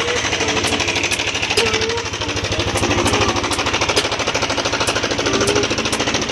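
Yamaha NMAX scooter's single-cylinder engine running with a harsh, rapid, rattling pulse: the severely rough engine noise that is the scooter's fault.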